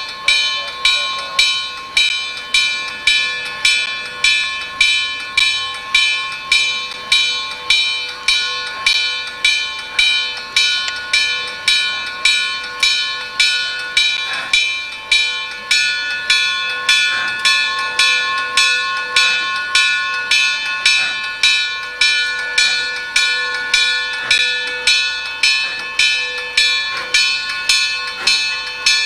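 A railroad bell ringing steadily as a steam locomotive pulls a passenger train slowly through a grade crossing, just under two clangs a second, each ringing on.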